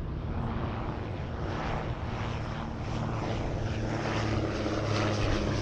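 De Havilland Dragon Rapide's two propeller-driven piston engines droning steadily in flight, with a regular pulsing in the sound, growing louder in the second half.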